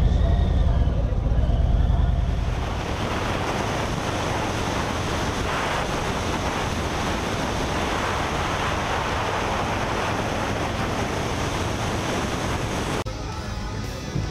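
Harley-Davidson V-twin motorcycle engine running at low speed, then about two and a half seconds in a steady rush of wind noise over the microphone takes over as the bike rides along at speed. The sound cuts off abruptly near the end and music begins.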